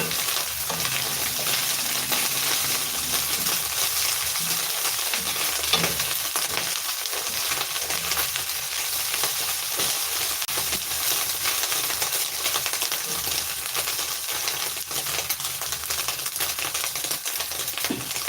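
Small Lake Victoria sardines (omena) sizzling and crackling steadily as they deep-fry in hot oil, being fried until crunchy before the spices go in.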